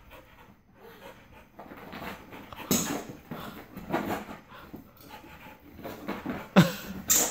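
A dog breathing hard in short, irregular bursts as it leaps and twists after a dangling toy, with louder bursts about two and a half seconds in and near the end.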